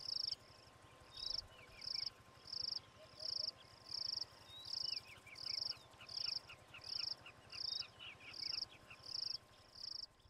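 Insect chirping in a steady rhythm: a high, buzzy chirp about every two-thirds of a second, with one gap about half a second in. Fainter, lower short chirps run underneath.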